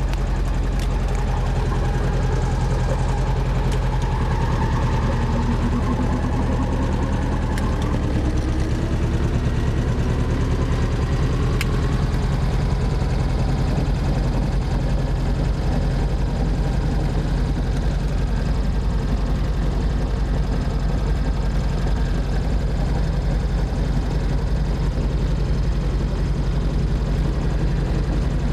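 Helicopter engine and rotor running steadily after a jump start, with a tone rising in pitch several seconds in.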